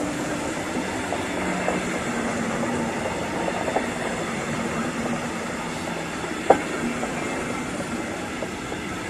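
Double-deck passenger coaches of a regional train rolling past: a steady rumble of steel wheels on the rails with a few light clicks over rail joints, and one sharp clack about six and a half seconds in.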